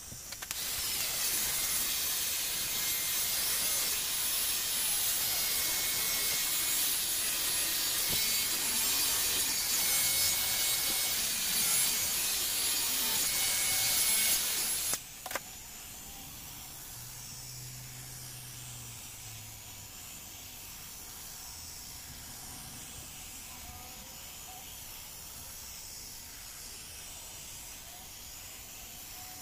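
Handheld electric air blower running with a loud, steady rush of air, which shifts the wet resin on the spinning tumbler. About fifteen seconds in it switches off with a click, leaving a fainter steady hiss.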